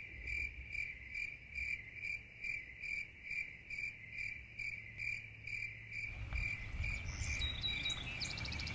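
Cricket chirping in a steady rhythm, about two high chirps a second. From about six seconds in, other short high calls and a low rumble join it.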